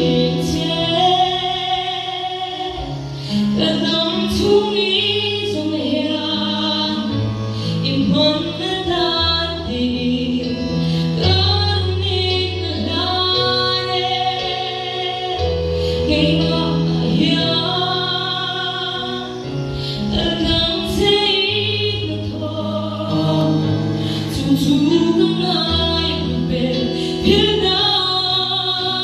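A woman singing a gospel song solo into a microphone, her voice wavering and gliding between notes, over instrumental accompaniment with held bass notes that change every second or two.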